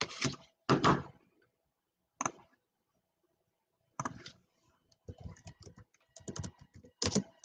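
A few knocks and rustles in the first second, then clicks of a computer mouse and a fast run of typing on a computer keyboard over the last couple of seconds.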